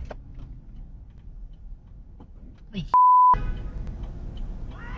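A short steady censor bleep, a pure tone near 1 kHz, about three seconds in. It blanks out a word in a profanity-filled shouting argument, over a steady low rumble.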